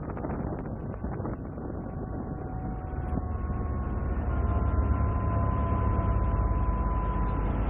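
A motor yacht's engines running under way, a steady low drone that grows louder about three to four seconds in, with a few steady whining tones over it.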